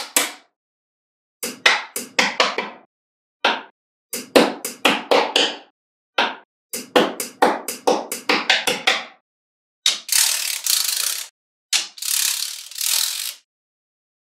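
Small metal magnetic balls snapping together: clusters of sharp clicks and clacks as blocks of magnet spheres are joined, then two longer, dense crackling rattles near the end as a block of balls is pressed into place.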